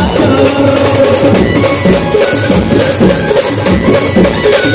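Loud Indian street-band music played through a truck-mounted loudspeaker system, with a driving drum and percussion beat under sustained melody.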